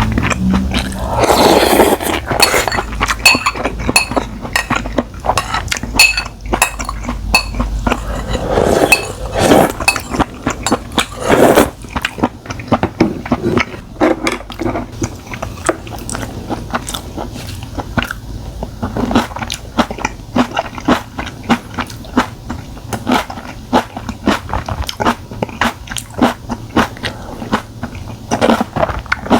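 Close-miked eating of spicy stir-fried webfoot octopus: wet chewing and mouth sounds, with utensils clinking against dishes. There are many short clicks throughout and a few louder mouthfuls about 2 s, 9 s and 11 s in.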